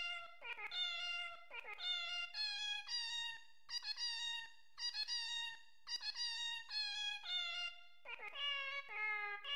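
Background music: a melody of held notes stepping up and down, about two notes a second, with a few short breaks.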